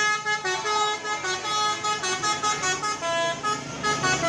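Bus telolet horn, a multi-tone Basuri air horn, playing a quick melody of short notes that jump between pitches.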